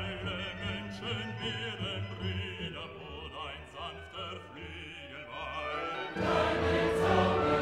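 Background classical music with a wavering, operatic-style voice. The music swells fuller and louder about six seconds in.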